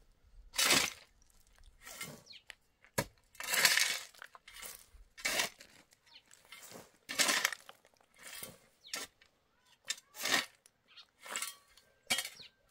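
A metal shovel scraping into dry, stony dirt, about a dozen separate strokes at roughly one a second with small stones clinking.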